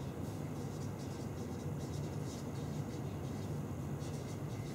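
Marker pen writing on flipchart paper: a run of short, irregular scratching strokes over a steady low background hum.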